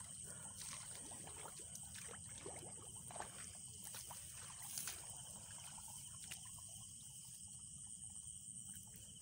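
Someone wading through rice-paddy mud and water, with a few soft splashes and squelches in the first half. Under it runs a faint, steady, high-pitched chorus of night insects.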